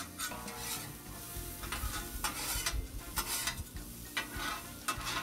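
Two metal spatulas scraping and clacking irregularly on a Blackstone griddle's flat steel top as sliced onions are stirred and broken up, with the onions sizzling lightly in oil.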